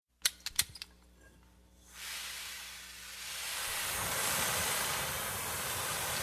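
A few sharp clicks in the first second, then a steady hiss that fades in about two seconds in and grows louder, with a low rumble underneath.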